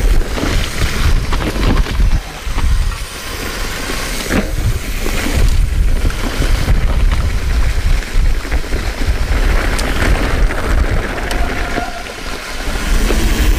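Wind buffeting a chest-mounted action camera's microphone as a mountain bike rides fast down a leaf-covered dirt trail, with tyre noise over leaves and dirt and occasional knocks from the bike rattling over bumps.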